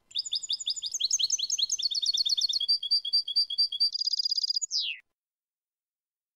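European goldfinch singing one 'clean' song phrase of about five seconds: quick, repeated high chirping notes, then a fast trill, ending in a single note that glides steeply down before the song stops.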